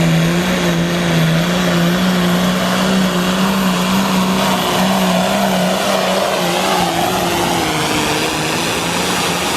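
Competition pulling tractor's engine running loud at high, nearly steady revs while pulling the sled down the track, its pitch wavering slightly.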